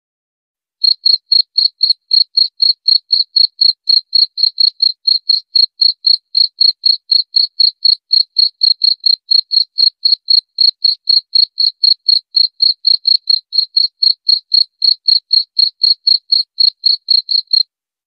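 A cricket chirping in a steady, even rhythm of short high-pitched chirps, about four a second, starting about a second in and stopping just before the end.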